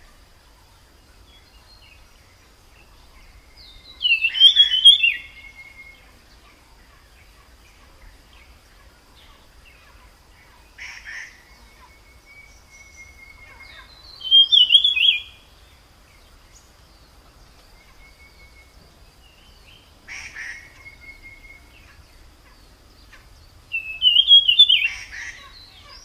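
A small forest songbird, the tledekan, singing: a short, fast warbling phrase about every ten seconds, three times, with softer short calls and thin level whistled notes in between.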